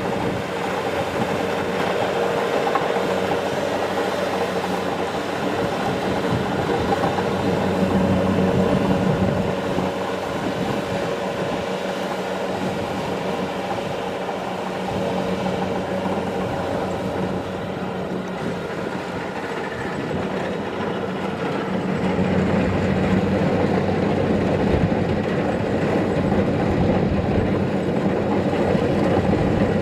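Kubota DC-70 Plus rice combine harvester running steadily: its diesel engine and working machinery, growing somewhat louder in the last third.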